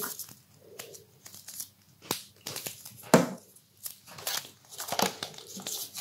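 Folded paper rustling and crinkling in the hands as a glue stick is rubbed on a paper tail and the tail is pressed onto a fan-folded paper bird: a run of short, irregular rustles and crackles.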